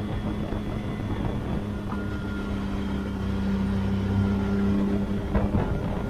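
Can-Am Maverick R side-by-side's turbocharged three-cylinder engine running at a steady pitch, getting a little louder about halfway through, with a few short knocks near the end.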